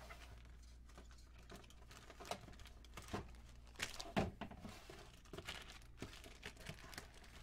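Fabric bags being handled and set down on a table: faint, scattered rustles and soft knocks, the loudest about four seconds in.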